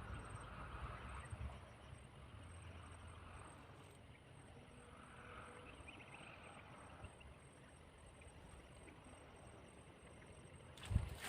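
Faint outdoor ambience: a steady hiss with a high, evenly pulsing chirp running through it. A few loud knocks come near the end.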